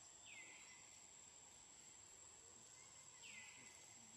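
Faint outdoor ambience with a steady high-pitched whine and two short animal calls, each sliding down in pitch then holding briefly, about three seconds apart.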